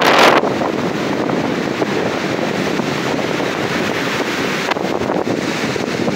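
Heavy storm surf breaking and washing up the beach, with wind buffeting the microphone. A loud rush at the very start cuts off within half a second, and the roar swells again about five seconds in.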